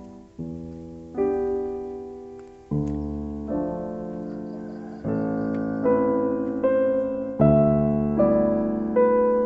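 Slow solo piano music: chords struck about once a second and left to ring out, growing louder over the passage.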